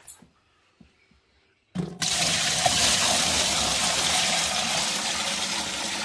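Water poured from a plastic bucket into the plastic wash tub of a portable mini washing machine: a steady splashing rush of water that starts suddenly a little under two seconds in, after a few faint knocks.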